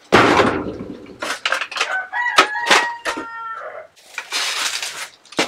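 A rooster crows once, a drawn-out call slightly falling in pitch, starting about two seconds in. Rustling and clatter from things being handled come before and after it.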